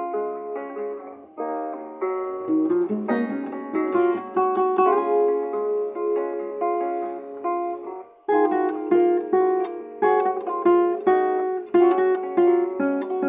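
Music on a plucked string instrument, most likely an acoustic guitar: a stream of picked melody notes, each ringing and fading. The playing breaks off briefly about a second in and again about eight seconds in.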